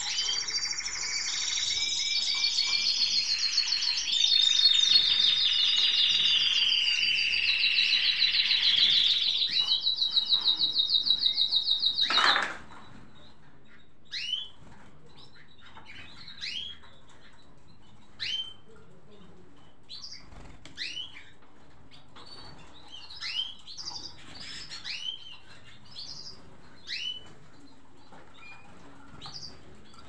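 Caged pet birds singing: a loud, continuous, rapidly trilling song for about the first twelve seconds that cuts off suddenly with a click, followed by scattered short, rising chirps.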